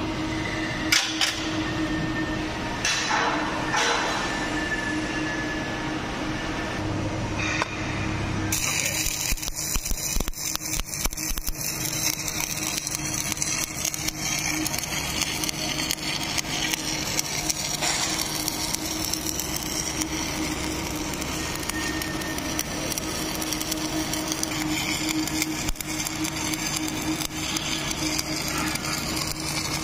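Welding arc crackling and hissing on a steel vessel, starting about eight seconds in, over a steady electrical machine hum.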